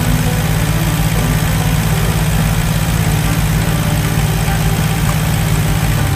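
Allis-Chalmers D14 tractor's four-cylinder engine running steadily with an even low pulse.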